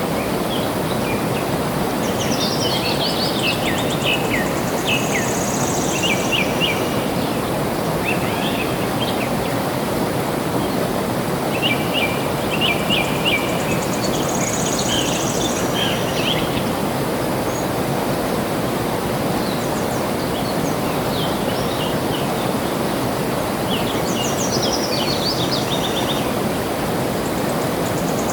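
Steady rush of flowing water, with birds chirping over it in bouts of short, quick notes about two, twelve and twenty-four seconds in. A short high buzz comes back about every ten seconds.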